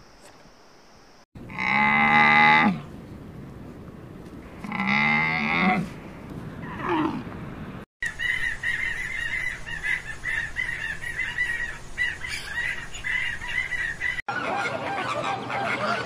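Giant panda bleating: two long, low, goat-like calls a few seconds apart, then a short one. Next comes a stretch of rapid high peeping from swan cygnets. Near the end a flock of flamingos honks and chatters.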